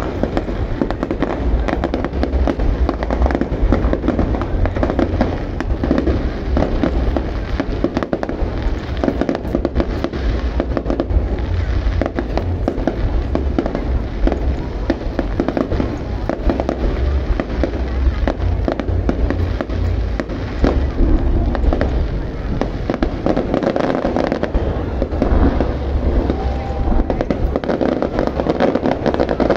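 Fireworks display going off continuously: rapid, overlapping deep booms and sharp cracks with no break.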